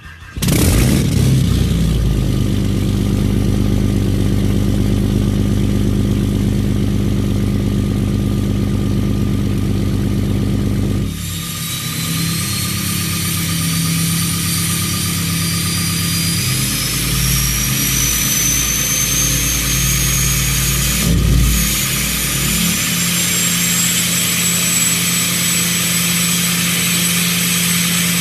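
Diesel engine cold-starting in winter: it catches right away and runs loud and rough, then about eleven seconds in settles to a steadier idle. Over the idle a thin high whine slowly rises in pitch.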